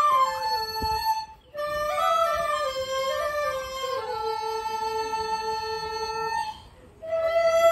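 Chinese bamboo flutes (dizi) played together in a slow melody of held notes, with brief breaks between phrases about one and a half seconds in and near the end, and one note held for about two and a half seconds in the middle.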